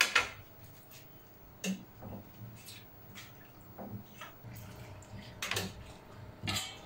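A knife chops once on a wooden cutting board at the start. Then come scattered light taps and clinks of kitchen utensils, and a louder knock near the end.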